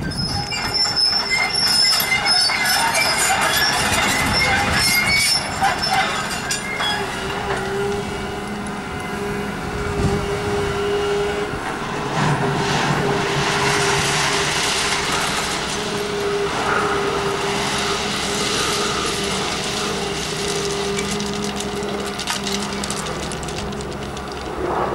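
Volvo tracked excavator working a ballast pile: its diesel engine and hydraulics run steadily, with high metallic squealing over the first several seconds, then a steady whine.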